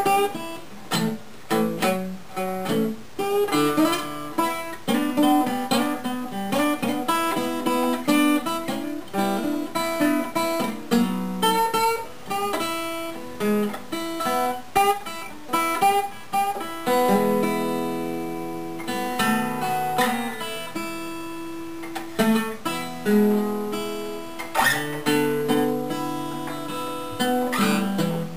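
Gibson L-48 archtop acoustic guitar played freely, mixing picked single-note lines and chords with quick sharp attacks. Past the middle it moves to longer chords that are left to ring.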